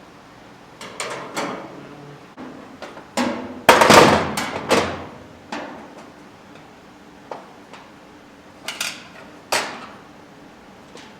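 Irregular knocks and bangs on sheet-metal truck bed panels as an aftermarket bedside is forced into place under the floor pan edge. The loudest cluster of strikes comes about four seconds in, with a few more spaced hits later.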